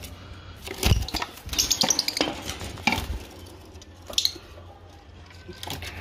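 Light metallic clinks and knocks of a wire bird cage and wooden nest box being handled, scattered through the first half and quieter later.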